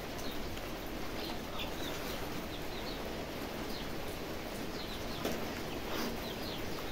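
Small birds chirping in the background, many short, high, falling chirps over a steady outdoor hiss. A couple of soft sounds of rice and curry being mixed by hand come through about five and six seconds in.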